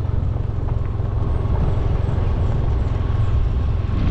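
Small motorcycle engine running steadily while riding, with wind and road noise over it.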